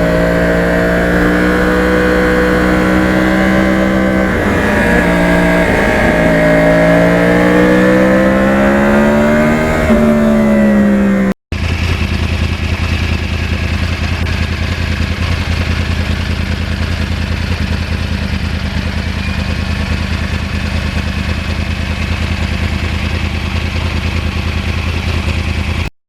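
Yamaha R1 crossplane inline-four motorcycle engine under way, rising and falling in pitch as it pulls and eases off. After a cut about eleven seconds in, it settles into a steadier, rushing drone.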